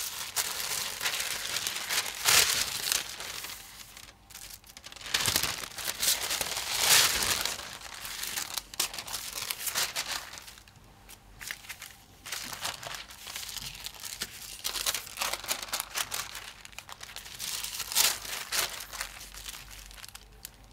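Large sheets of paper being handled, lifted and moved: irregular bursts of crinkling and rustling with short pauses between them.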